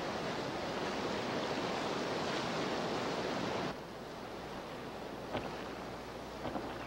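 Rushing white water of river rapids, a steady wash that drops to a quieter flow about three and a half seconds in, with a couple of faint knocks near the end.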